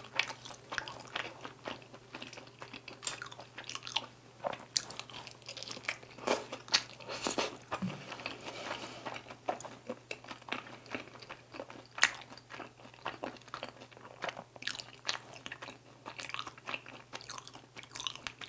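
Close-miked chewing of crispy glazed Korean fried chicken bites (dakgangjeong), with many irregular crunches.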